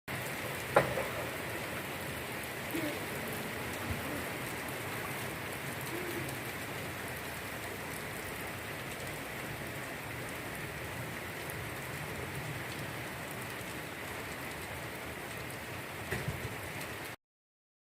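Steady rain falling with an even hiss, a sharp tap about a second in and a few knocks near the end. It cuts off suddenly.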